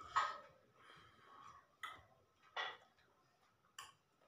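Faint, scattered short mouth and vocal sounds from a person, several brief bursts with pauses between them.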